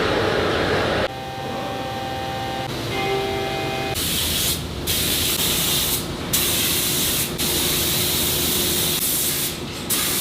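Machine whine with steady tones, then a loud hissing spray that stops and restarts several times, like compressed air or a spray gun.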